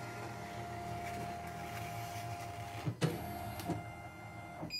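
CNY E900 computerized embroidery machine's embroidery-unit motors driving the hoop across the bed during a slow test run. It makes a steady electric whine in two stretches, with a click between them about three seconds in.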